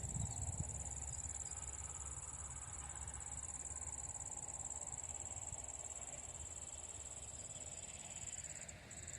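Insects chirring steadily in one high-pitched, unbroken tone, with a low rumble underneath.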